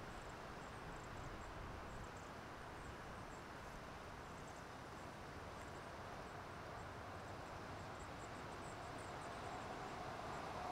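Quiet outdoor roadside ambience with faint, high-pitched chirping repeating throughout, then a pickup truck approaching on the highway, its road noise growing louder near the end.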